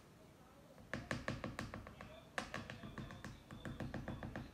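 Rapid, uneven tapping that starts about a second in: a spoon knocking against the plastic container while stirring the glue and food-colouring mixture for slime.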